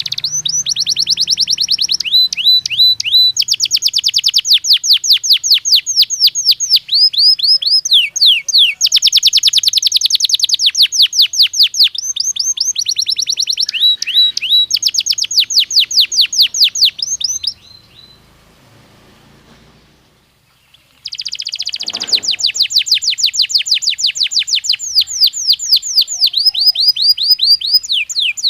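Belgian canary singing in long phrases of rapid, evenly repeated sweeping notes, each phrase a fast trill that shifts to a new note type every second or two. A pause of about three seconds falls past the middle before the song resumes.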